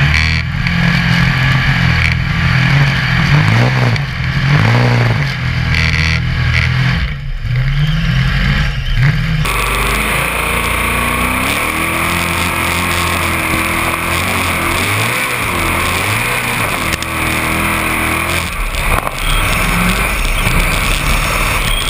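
Formula Offroad buggy engine heard from onboard, revving hard with its pitch swinging up and down as the throttle is worked. About nine seconds in the sound changes abruptly to a steady hiss of air noise over a quieter, wavering engine note.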